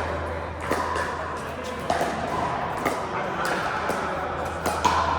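Pickleball paddles hitting the plastic ball and the ball bouncing: sharp pocks at irregular intervals, about six of them, two close together near the end.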